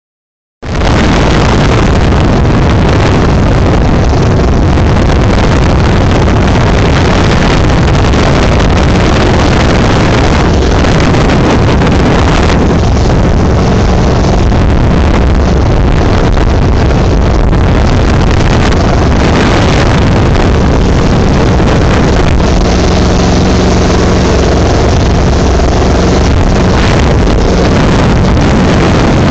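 Jet boat powered by an Oldsmobile 455 V8 running at speed, a steady loud engine drone under the rush of spray and heavy wind buffeting on the microphone. It cuts in suddenly about half a second in.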